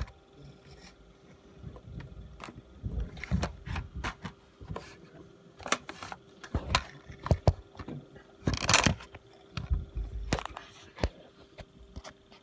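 Handling noise as the camera is moved and repositioned: irregular knocks, clicks and rustling, with a longer rustle about two-thirds of the way in. A faint steady hum runs underneath.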